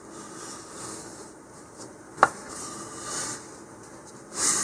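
Fingers rubbing masking tape down tight onto a fiberglass body tube: a soft rubbing, with one sharp click about halfway through and a louder rubbing hiss near the end.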